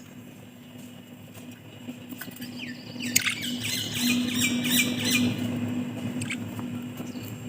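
Budgerigars chirping and chattering, with a quick run of warbling chirps from about three to five seconds in, over a steady low hum.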